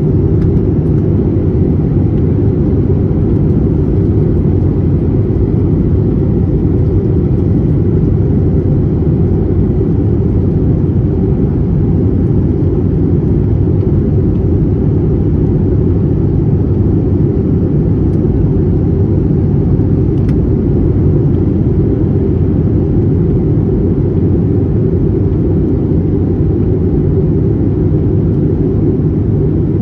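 Steady low rumble of engine and airflow noise inside the cabin of an Airbus A321neo airliner in flight, unchanging throughout.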